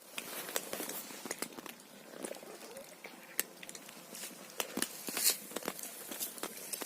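Cats eating dry food: irregular crisp crunches and clicks of kibble being chewed, several in quick succession.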